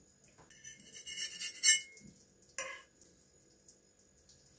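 A few light clinks of a utensil against a ceramic plate about a second in, then a soft knock as a piece of cooked fish is set down on the plate.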